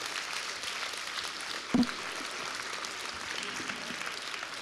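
Audience applauding steadily at the end of a talk. About two seconds in there is a single brief, louder thump.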